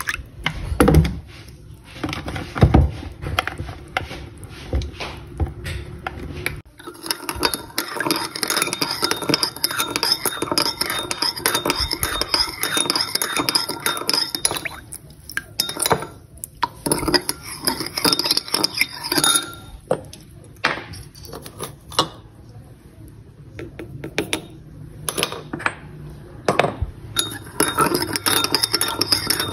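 A thin stream of dark sauce is poured from a bottle into a ceramic bowl, with a few soft thuds. About seven seconds in, a metal spoon starts stirring it, clinking and scraping against the bowl's sides, with a few short pauses.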